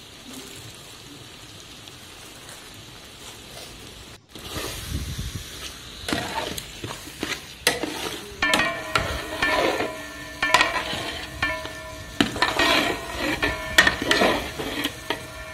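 Metal ladle stirring chicken pieces in masala in a large aluminium pot: irregular scraping and clinks against the pot's sides, with the food sizzling. For the first four seconds only a steady sizzle is heard; the stirring starts after that.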